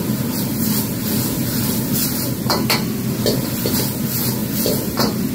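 Mapo tofu sauce sizzling and bubbling in a wok over a running gas wok burner, with a steady low hum under it, as starch slurry is poured in and the wok is swirled. A few sharp clicks of the metal ladle against the wok come about two and a half seconds in and again near the end.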